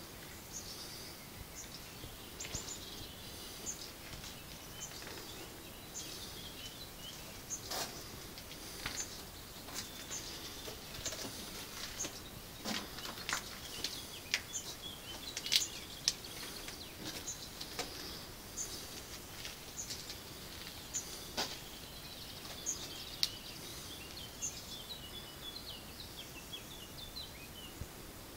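Several songbirds singing and calling against a quiet outdoor background, with many short high chirps and a few rapid trilled phrases. A few sharp clicks and knocks come through now and then.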